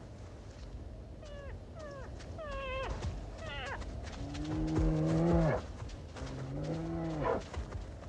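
Grizzly bear cubs calling: a quick run of short whines that fall in pitch, then two longer, lower, steady bawls, the first about halfway through and the second near the end.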